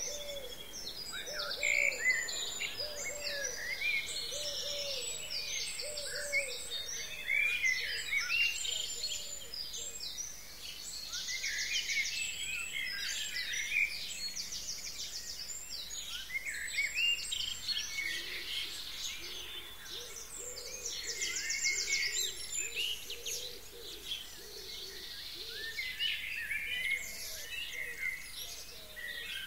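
Songbirds singing in a dense chorus of high chirps and trills. A lower call repeats about once a second over the first several seconds, and again more faintly later on.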